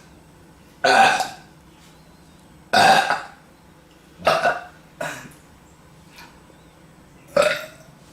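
A young woman burping five times, a second or two apart; the first two burps are the loudest and longest.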